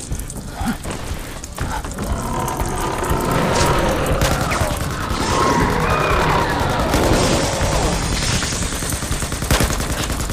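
A sustained rapid crackle like automatic gunfire, as a film sound effect, with a wavering high screech through the middle.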